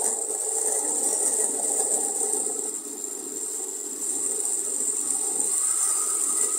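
Osterizer Cycle Blend countertop blender running steadily, its motor and blades churning chopped Tagiri pieces and water into a paste, with a brief dip in level about three seconds in.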